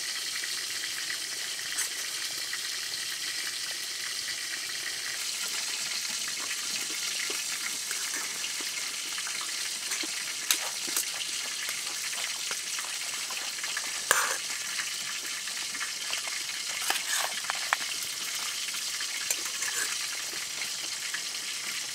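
A spoon clicking and scraping against a metal camping pan a few times while food is eaten from it, over a steady sizzling hiss.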